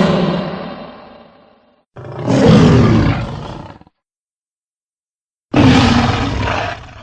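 Dinosaur roar sound effects in succession: one roar trailing off, a second short roar about two seconds in, then after a brief silence a third roar that starts loud and fades.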